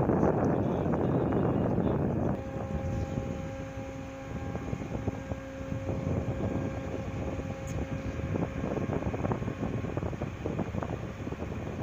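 Wind buffeting the microphone over running ship machinery. About two seconds in the wind drops and a steady multi-tone machinery hum comes through, which stops about nine seconds in, with scattered small knocks throughout.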